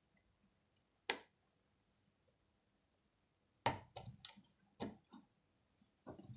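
Sharp clicks and light knocks of circuit boards and plastic frame parts being pressed together by hand: a single click about a second in, then a quick run of clicks and taps in the middle, and a few more near the end.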